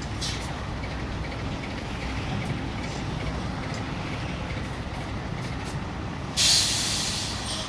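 Mercedes-Benz truck's diesel engine idling with a steady low rumble as the tractor reverses under a semi-trailer to couple at the fifth wheel. About six seconds in comes a sudden loud hiss of air from the truck's air brakes, fading over about a second.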